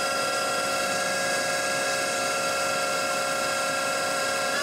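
Spindle of a 1987 Kitamura Mycenter 2 vertical machining center running at 3,000 RPM, a steady whine of several fixed tones. At the very end the pitch rises as the spindle speeds up toward 4,000 RPM.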